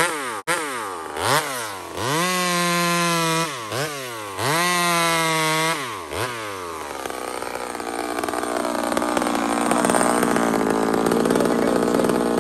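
Homelite two-stroke chainsaw revved hard in several bursts, its pitch falling back between them. Through the second half it gives way to a rougher, steadier running sound as the saw works through a log.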